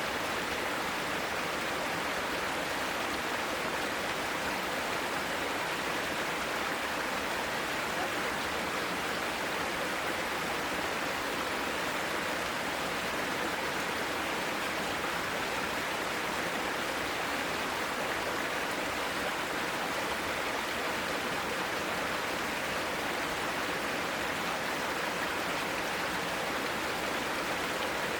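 Mountain valley stream flowing: a steady, even rush of water that never breaks or changes.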